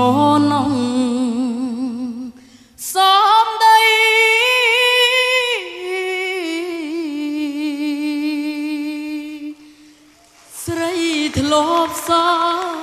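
A solo voice sings a slow Khmer ballad in long held notes with wide vibrato, with little or no backing. It stops briefly twice, about two seconds in and again near the end.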